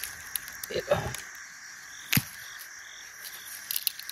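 Sharp snaps and cracks of shrub branches and twigs being broken by hand for firewood, a handful spread over the few seconds, the loudest about two seconds in and a quick cluster near the end. Under them runs a steady background chorus of forest creatures.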